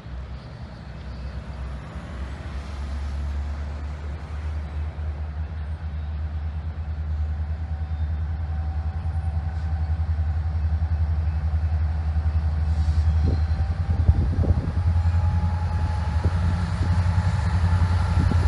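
Norfolk Southern freight diesel locomotives approaching with a low, steady engine rumble that grows gradually louder as the intermodal train draws near.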